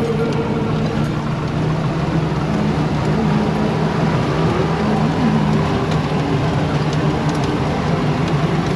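Jeep engine running steadily with rumbling road noise as it drives over a rough dirt mountain track, heard from inside the cabin.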